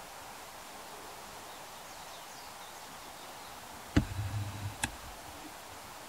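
Steady outdoor background hiss with a few faint high chirps. About four seconds in, a sharp knock is followed by a brief low rumble and a second, softer click.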